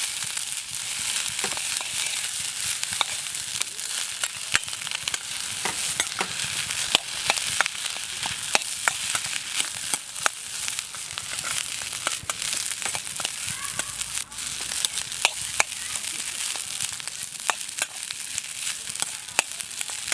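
Meat sizzling on a grill over a wood fire: a steady hiss with frequent sharp pops and crackles.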